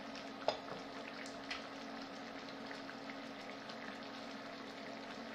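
Mushroom sauce simmering in a skillet on an induction cooktop: a faint, steady bubbling sizzle over a low steady hum, with a sharp click about half a second in.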